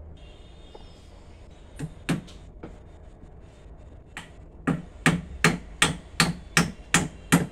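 Hammer striking a wooden chair frame while a broken leg is mended: two blows about two seconds in, then a steady run of blows about three a second from near the middle on.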